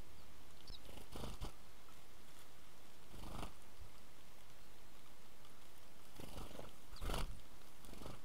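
House sparrows' wings whirring in short flurries, about five times, as the birds fly in and land at a ground feeder, the loudest near the end; a steady low hum lies underneath.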